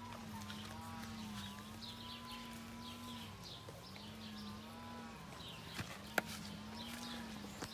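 Hens calling while feeding: drawn-out low calls that waver in pitch, overlapping short high peeps. One sharp click about six seconds in.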